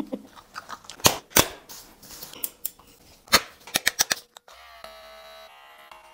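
A run of sharp clicks and snaps, then a Kemei cordless hair clipper switching on about four seconds in and running with a steady buzz.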